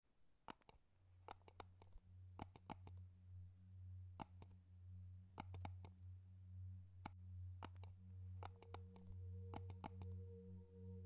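Faint low steady hum that fades in over the first second, with scattered irregular clicks, some in small clusters; a fainter, higher steady tone joins about eight and a half seconds in.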